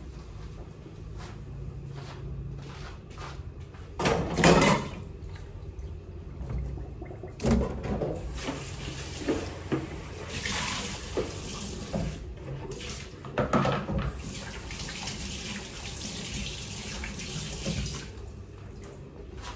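Water running from a kitchen tap into a sink: a steady stream of water from about eight seconds in until near the end, with a few louder knocks, the loudest about four seconds in.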